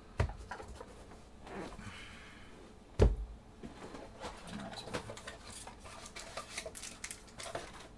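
Handling noise at a desk: a knock just after the start and a louder knock about three seconds in, then a run of small clicks and rustles as trading-card packs and cards are handled.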